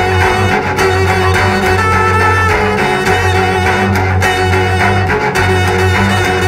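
Four cellos playing a loud heavy-metal arrangement, with bowed low notes driving steadily underneath and higher bowed lines above.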